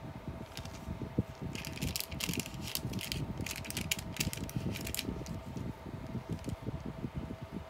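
Steady low, fluttering rumble with a faint steady hum underneath. From about a second and a half to five seconds in, a run of crisp rustling and crackling clicks.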